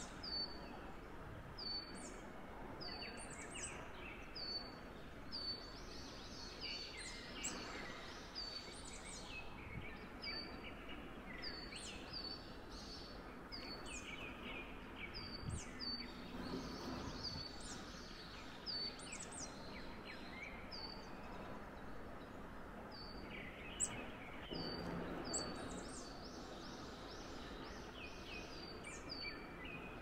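Small songbirds chirping: many short, high-pitched notes repeated about once a second over a steady background hiss. A single sharp tap late on is the loudest moment.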